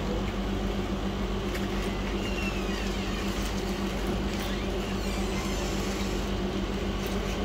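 Steady machine hum of a repair bench room, fans and powered equipment running, with a few faint light clicks from parts being handled.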